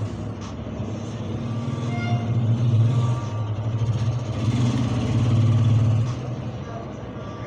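A low engine hum, like a motor vehicle running close by, that swells louder twice before settling back.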